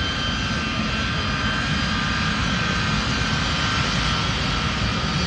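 Delta jet airliner's engines at takeoff power: a steady rumble with a thin high whine held at a constant level.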